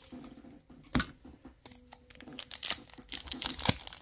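Crinkling plastic trading-card packaging being handled and torn open, with one sharp tap about a second in and the crackling growing denser in the second half.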